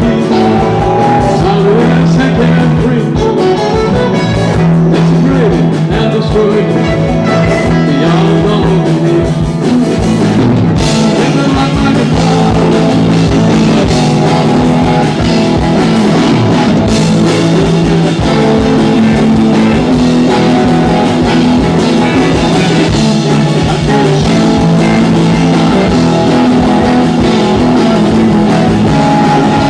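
Live rock band playing a song, with guitar to the fore and singing, at a steady loud level.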